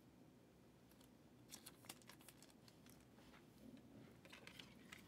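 Near silence, broken by a few faint clicks and rustles: a trading card being handled and slid into a hard plastic card holder.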